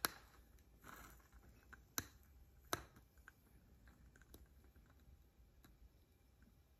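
Near silence: room tone with a few faint, sharp clicks, three of them standing out, at the very start, about two seconds in and just under three seconds in.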